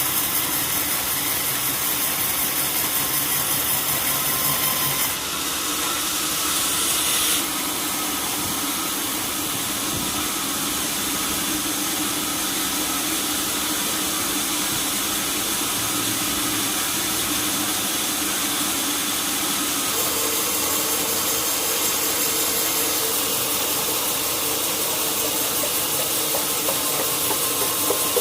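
Sawmill machinery running with a loud, steady hiss as a saw cuts through a large log. The sound shifts about five seconds in, again a couple of seconds later, and once more around twenty seconds in.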